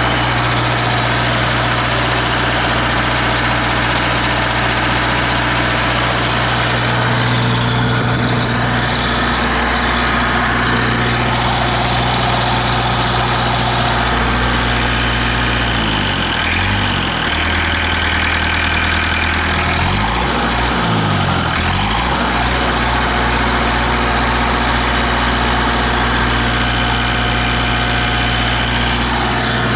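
Continental TMD27 diesel engine running steadily, its low tone wavering briefly about halfway through.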